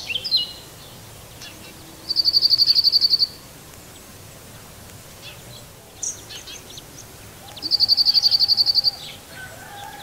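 A small songbird gives two rapid, even, high trills, each about a second long and a few seconds apart, with a few short high chirps in between. A faint, drawn-out lower tone starts near the end.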